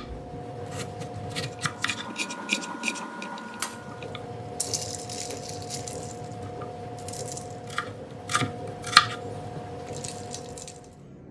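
Chef's knife cutting raw potatoes into fries on an end-grain wooden cutting board: a quick series of knocks in the first few seconds. Then water splashes as the cut potatoes go into a bowl of ice water, and a few louder knocks come near the end.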